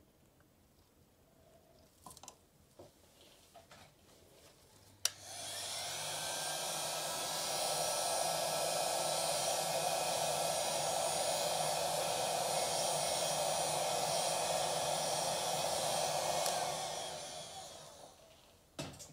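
Electric heat gun switched on with a click about five seconds in. Its fan builds to a steady blowing hiss with a low hum, held just over freshly poured epoxy resin to pop surface air bubbles, then it winds down and fades near the end. A few faint clicks come before it.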